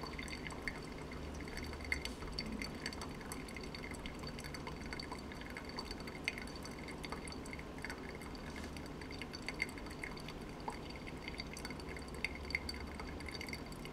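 Brewed coffee dripping and trickling from a Bee House pour-over dripper into the coffee pooled in a glass carafe, faint, with small irregular drip ticks over a faint steady hum.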